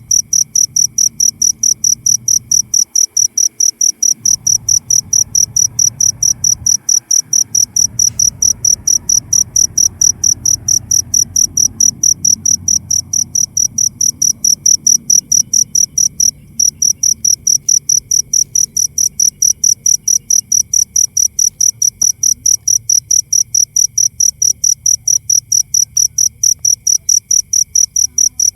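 Cricket chirping steadily: loud, high-pitched chirps repeated at an even, rapid rate, with one brief break about halfway.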